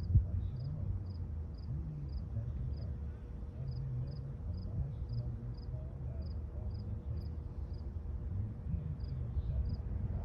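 An insect chirping about two to three times a second, pausing briefly near the end, over a steady low rumble. A sharp thump comes just after the start.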